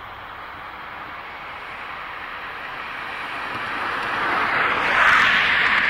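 Highway traffic: road and tyre noise from a passing vehicle, swelling over a few seconds to its loudest about five seconds in as it goes by close to the camera.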